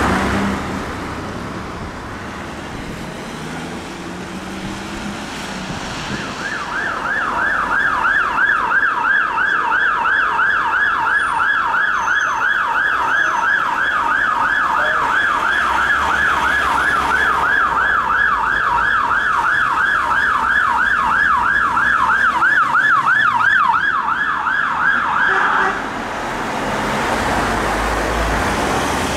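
UK police car siren on a fast yelp, sweeping up and down about four times a second, over road traffic noise. It comes in about a fifth of the way through and cuts off suddenly near the end.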